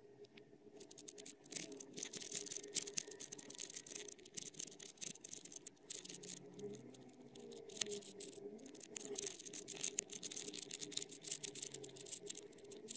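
Plastic pieces of an intersecting-circles twisty puzzle clicking and rattling as its two rings are turned by hand in their clear acrylic frame. It is a dense, uneven run of small clicks that starts about a second in.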